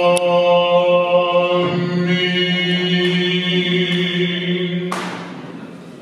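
Byzantine chant from the Greek Orthodox liturgy: a long held sung note over a steady low drone. The melody shifts once about two seconds in and breaks off about five seconds in.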